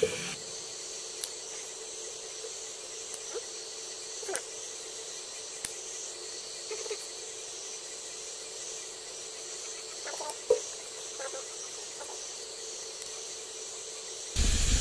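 Night insects chirring steadily in a high even drone, over a faint steady hum. A few sharp clicks and snips come from a knife and kitchen shears cutting a squirrel carcass, and a louder rush of noise cuts in near the end.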